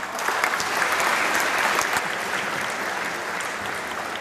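A large audience applauding: many hands clapping together, loudest in the first two seconds and then slowly fading.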